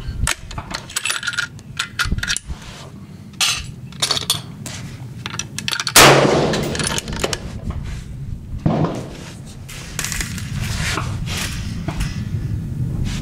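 A single .30-06 rifle shot from a Savage 111 about six seconds in, sharp and loud, with a rumbling tail that dies away over about a second. Small clicks and knocks come before it, and a fainter knock follows a few seconds after.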